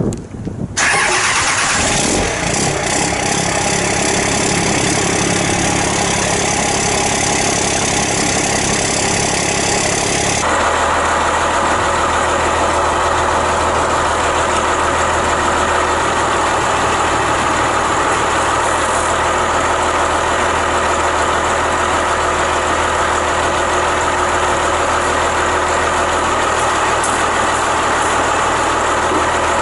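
Second-generation Dodge Ram pickup engine starting about a second in, then idling steadily. About ten seconds in the sound changes abruptly to another steady engine idle.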